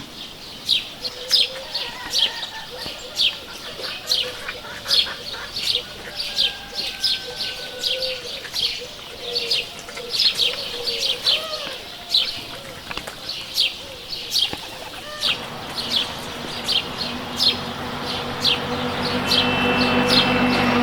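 Small birds chirping: a dense run of short, sharp, high chirps repeated a couple of times a second, with lower, curving calls mixed in through the middle. From about three-quarters of the way through, a steady low hum grows louder beneath the chirping.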